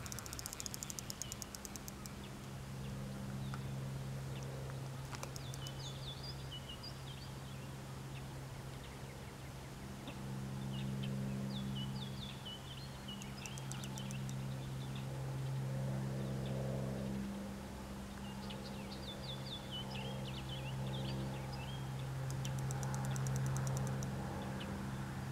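Songbirds singing in short chirping phrases at intervals, with a few fast high trills, over a steady low hum that swells and fades.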